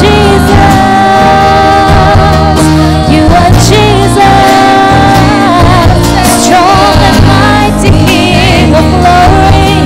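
A group of children singing a gospel song into microphones over instrumental accompaniment.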